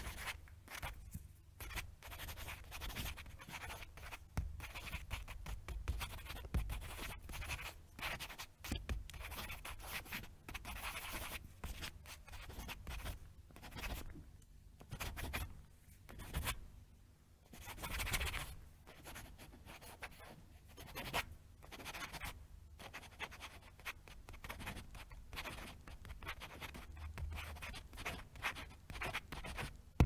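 Pen scribbling on paper in quick, irregular scratchy strokes, broken by short pauses between runs.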